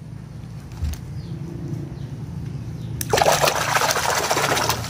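A hand swishing a small toy bicycle back and forth under stream water to rinse the mud off, with loud splashing and sloshing that starts about three seconds in. Before that there is only a low, steady background rush.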